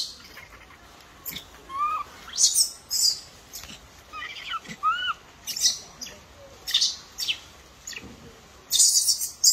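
Baby macaque calling: thin, high coo calls that rise and fall in an arch, a few in quick succession around the middle, among repeated short, shrill squeaks.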